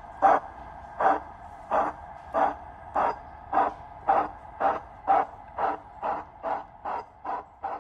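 Digital steam sound from a Zimo MS sound decoder in an O gauge Hudswell Clarke model tank engine, playing a recorded industrial steam loco through its small onboard speaker: exhaust chuffs over a steady hiss, quickening from about one and a half beats a second to about two and a half as the loco gets under way, and growing fainter near the end.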